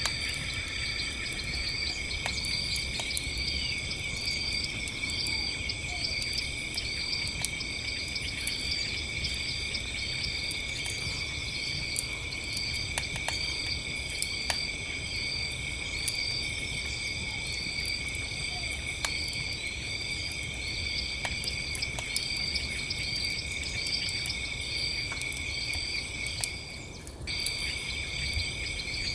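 Campfire crackling with scattered sharp pops over a low rumble, under steady night insects: a continuous high trill and a higher chirp repeated about three times every two seconds. The trill drops out briefly near the end, then resumes.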